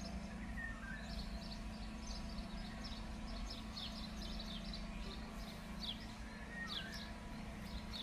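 Small birds chirping in the garden: many short, high chirps scattered throughout, with a couple of softer sliding calls. A steady low hum lies underneath.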